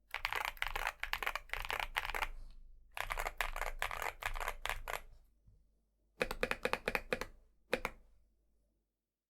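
Typing on a MONSGEEK M1W mechanical keyboard with an aluminium plate, MMD Princess tactile 48g switches and PBT keycaps: runs of quick keystrokes in three bursts with short pauses, then a brief last flurry, and the typing stops.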